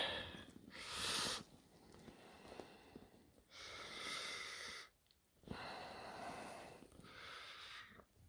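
A person breathing close to the microphone: four faint breaths, each lasting about a second.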